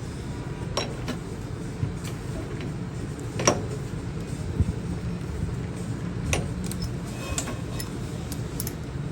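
Steady low hum of workshop machinery running, with a handful of sharp metallic clicks and taps scattered through it, the loudest a little past a third of the way in.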